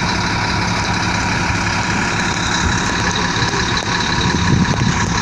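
Engine of a heavy road-construction machine running steadily, with a steady high whine over the low rumble.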